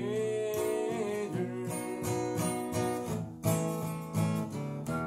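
Acoustic guitar strummed in a steady rhythm, with a man singing along who holds a long note on the word "together" near the start; the guitar then goes on alone.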